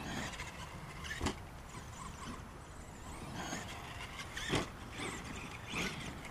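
Two Traxxas Summit 1/10-scale electric RC monster trucks driving over dirt jumps: faint electric motor whine rising and falling with the throttle over tyre and dirt noise, with a few thuds of landings, the loudest about four and a half seconds in.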